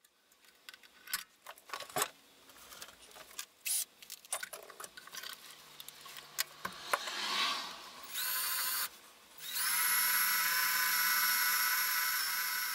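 Handheld power drill boring a mounting hole in the amplifier's metal chassis, run slowly: a short burst about eight seconds in, then a steady run of nearly four seconds. Before that come scattered small clicks and knocks of handling.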